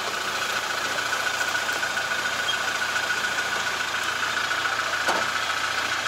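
Hired pickup truck's engine running as the truck sets off, a steady rumble with a constant high whine over it.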